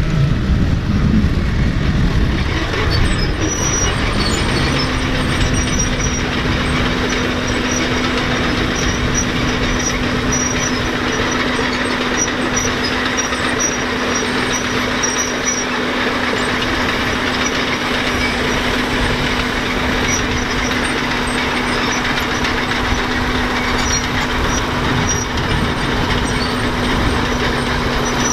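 Allis-Chalmers HD-6 crawler tractor's engine running hard under load as it pulls a weight-transfer sled, loud and steady, with a steady tone joining about four seconds in.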